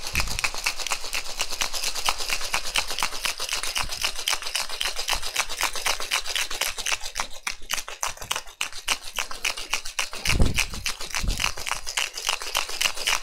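Ice cubes rattling hard inside a tin-on-tin Boston shaker as a cocktail is shaken, a fast, steady rhythm of several sharp strokes a second. A louder knock comes about ten seconds in.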